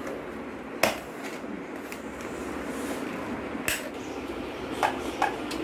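Stiff mount-board card being handled and pressed together, with sharp clicks about a second in and near four seconds and three lighter ones near the end, over a steady background noise.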